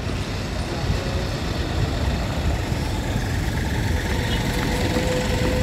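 Street traffic noise: a steady low rumble of passing road vehicles. A steady whine comes in near the end.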